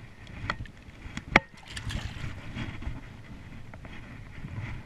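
A single sharp knock with a short ringing tone about a second and a half in, against the aluminium boat, over steady wind and water noise.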